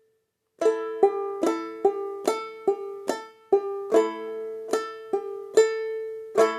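Clawhammer picking on a four-string ukulele-family instrument tuned gAEa. It starts a little over half a second in, with evenly spaced struck notes ringing, about two and a half a second, as a steady right-hand rhythm.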